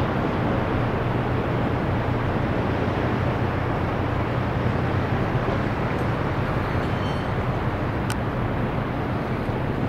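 Steady low engine drone of a departing cruise ship and her escort tug, a constant hum under an even wash of noise, with one short click about eight seconds in.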